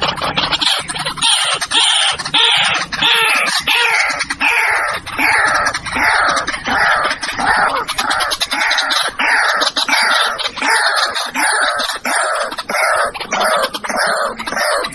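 White-breasted waterhen calling in a long, unbroken series of harsh, repeated notes, about two a second, each falling in pitch.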